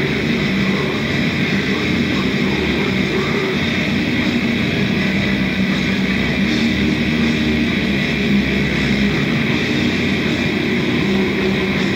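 Black metal band playing through a song on a 1991 rehearsal recording: a dense, steady wall of distorted sound with no breaks.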